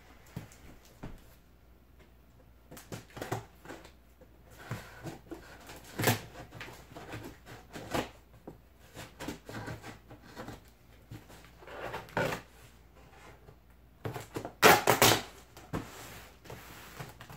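Packing tape being slit with a blade and torn off a large corrugated cardboard shipping box, with scrapes and knocks against the cardboard. Two longer tearing sounds come near the end, the second the loudest.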